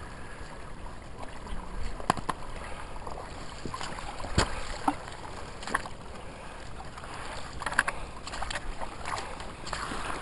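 Footsteps and rustling through dry brush and dead branches, with a sharp twig snap or crack every second or two.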